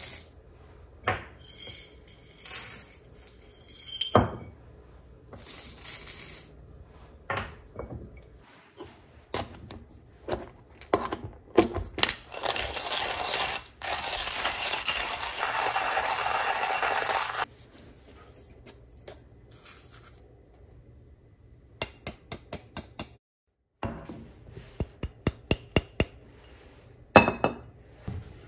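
Glass and metal kitchenware clinking and knocking on a wooden countertop during coffee preparation. Midway, about five seconds of steady rushing noise, and near the end a quick run of light clicks.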